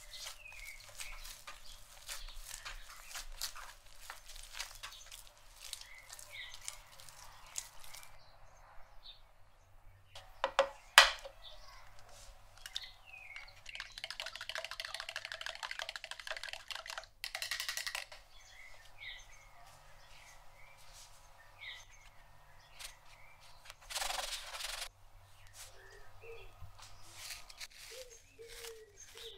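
Hands pressing and kneading butter into a soft dough on a worktop, with many small sticky taps for the first several seconds. A sharp knock about eleven seconds in is the loudest sound. A spoon then rapidly whisks raw eggs in a plastic jug for a few seconds, with a short second burst of whisking later.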